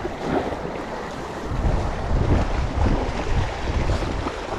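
Wind buffeting the microphone in gusts over the steady wash of waves along a rocky shoreline.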